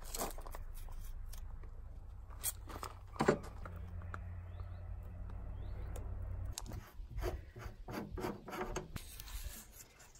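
Masking tape being pulled off the roll, torn and rubbed down onto an aluminium body panel: short rips, crinkles and rubbing scrapes, over a low steady rumble that drops away about two-thirds of the way through.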